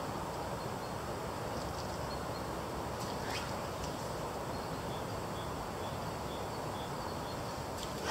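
Steady rush of a fast, high river in spate. A spey line swishes through the air once about three seconds in, and again more loudly near the end as the forward cast shoots out.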